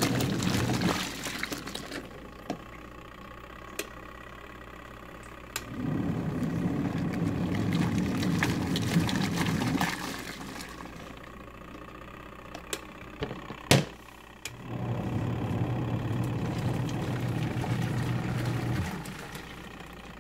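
Twin tub washing machine's wash motor churning a load of water, running in stretches of about four seconds with quieter pauses of about four to five seconds between them. A sharp click about thirteen and a half seconds in.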